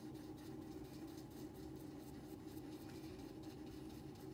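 Plastic toothpick stirring and scraping two-part JB Weld epoxy on mixing paper: faint, quick scratchy strokes over a steady low hum.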